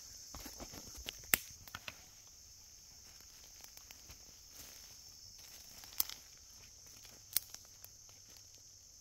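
Footsteps on dry leaf litter for the first two seconds or so, then stillness. A steady high drone of insects runs underneath, and there are two sharp single clicks or snaps later on, about a second and a half apart.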